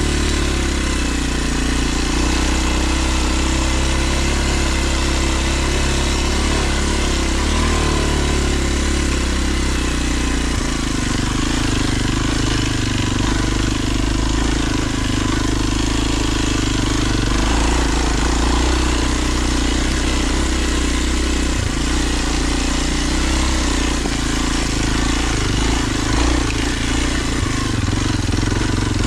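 2022 Kawasaki KLX230 dual-sport motorcycle's single-cylinder four-stroke engine running at low, fairly steady revs on a trail climb, its pitch shifting slightly up and down in the first several seconds.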